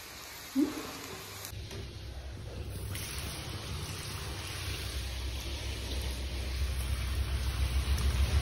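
Potato fries sizzling in hot sesame oil in a kadhai, the sizzle growing louder over a low rumble as fresh fries go into the oil. A brief sharp sound about half a second in.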